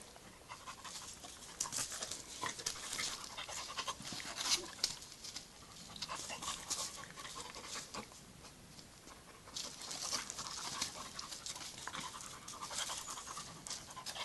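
A jagdterrier puppy and a larger dog play-fighting: quick panting breaths with scuffling and short clicks of paws and bodies on gravelly dirt.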